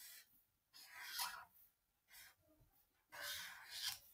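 Felt-tip marker writing on lined notebook paper: four short strokes with gaps between them, the last one, near the end, the longest.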